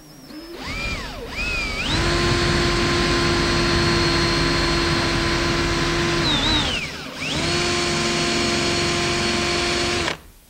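Power drill with a Forstner bit boring into a wood miter joint. The motor winds up in pitch over the first two seconds and then runs with a steady whine. About seven seconds in it slows and dips briefly, then comes back up to speed and stops abruptly near the end. This is the bit trimming down an oversize glued-in wafer.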